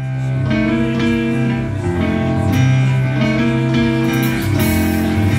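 Live band playing an Americana song: strummed acoustic guitars over held chords and a steady bass line, fading in at the start.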